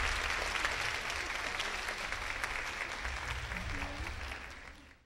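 Audience applauding in a hall, slowly dying away and then cutting off abruptly near the end.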